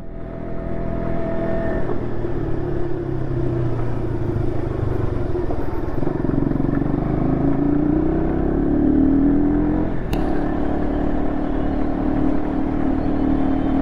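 Sport motorcycle's engine running under way, its pitch climbing steadily from about six seconds in as the bike picks up speed. There is a short sharp click about ten seconds in, and after it the engine holds a steady note.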